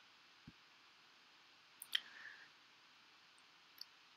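Near silence broken by three faint clicks of a computer mouse, the loudest about two seconds in.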